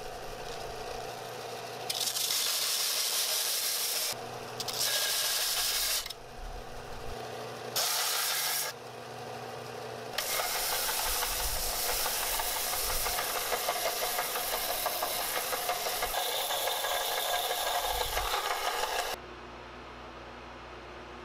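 Bench belt sander running while the edges of laser-cut steel plates are pressed against the belt to deburr them: a harsh grinding hiss in several short passes, then one long pass, over the steady hum of the sander's motor. Near the end the grinding stops and only a quieter steady machine hum remains.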